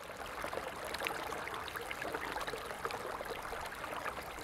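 A stream running: a steady rush of flowing water dotted with many small gurgles and splashes.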